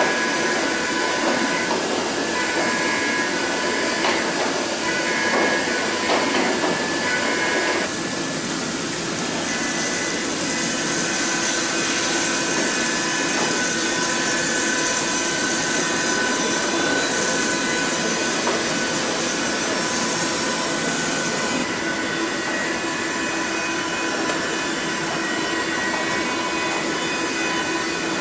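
Hwacheon L1 2500 double-column machining center milling AL6061 aluminium with a 10 mm flat endmill at 10,000 rpm: a steady whine of several fixed tones over a steady hiss. The sound changes abruptly about eight seconds in as the cut changes, and a higher hiss joins between about ten and twenty-two seconds in.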